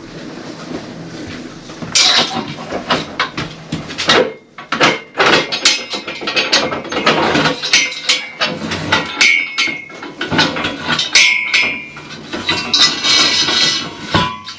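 Steel Acro prop being wound down and released: a run of metallic clanks, clicks and rattles from the threaded collar and pin, with short ringing clanks about nine and eleven seconds in.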